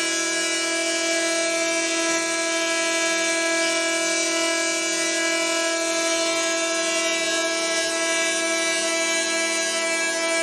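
Prepared, amplified hurdy-gurdy sounding a steady, unchanging drone rich in overtones, with a hiss of noise on top.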